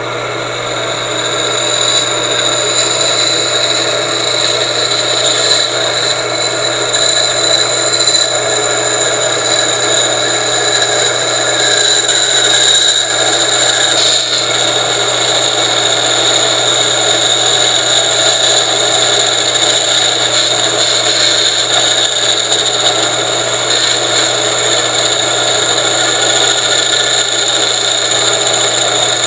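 Electric motor running steadily with a low hum and a high whine, turning a shaft in an improvised lathe, while a hand-held tool scrapes against the spinning metal part in a continuous rasping hiss, slowly cutting it.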